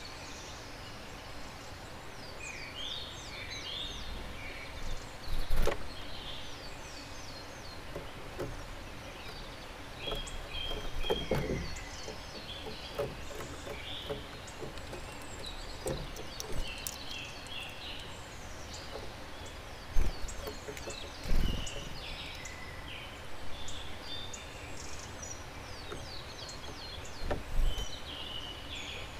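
Small birds calling and singing in a dawn chorus, with short high chirps and trills throughout. About five sharp knocks or taps are spread through it, the loudest about two-thirds of the way in.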